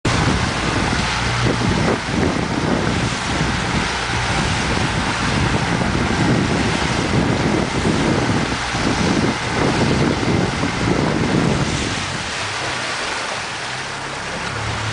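Wind buffeting the microphone in uneven gusts over the steady rush of choppy sea water.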